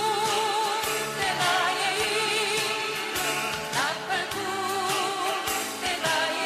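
Korean praise song: a singer holds long notes with vibrato over instrumental accompaniment.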